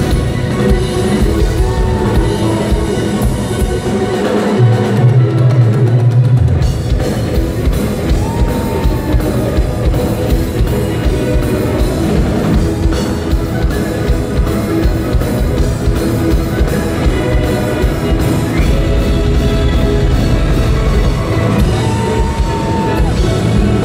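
Live rock drum kit solo: fast, dense strokes on drums and cymbals, with steady held tones underneath and a heavy low boom about five seconds in.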